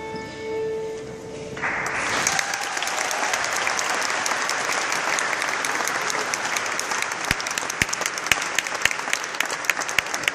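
A held musical chord dies away, and about one and a half seconds in an audience breaks into steady applause that keeps going, with some sharp claps close by.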